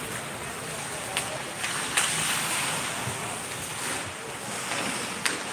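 Ice hockey being played: skates scraping and carving the ice over a steady rink hiss, with a few sharp clicks of sticks striking the puck.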